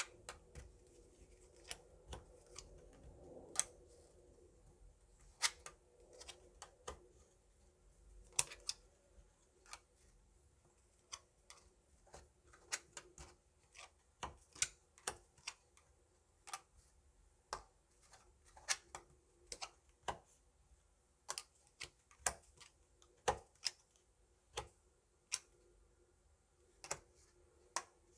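Hwatu cards, small stiff Korean flower cards, being laid and slapped down one after another in a fortune-telling spread: a run of sharp, irregular clacks, about one or two a second.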